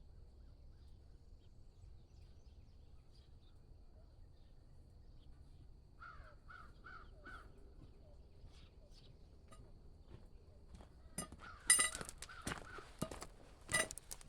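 A crow cawing four times in quick succession, about six seconds in. Over the last three seconds comes a run of loud, sharp knocks and clatters.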